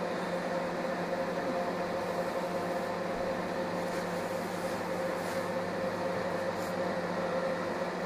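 Scarlett SC 291 microwave oven running: a steady hum with several tones from its high-voltage transformer, fan and turntable motor. It is heating water, with the newly fitted relay now feeding the high-voltage transformer, so the repair works.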